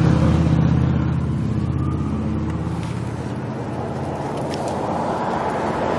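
A motor vehicle's engine running with a low hum that fades away over the first couple of seconds, leaving a quieter steady background noise.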